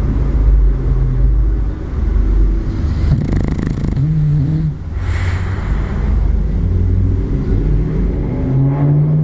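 Bulldog snoring in its sleep: a continuous low, rattling snore with a breathy rush of air every few seconds.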